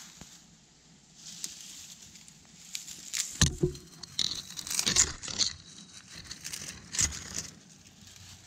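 Dry twigs and brush crackling, snapping and rustling as they are handled and dropped into a sand fire pit for kindling. They come in several short bursts of crackles, the loudest around the middle and near the end.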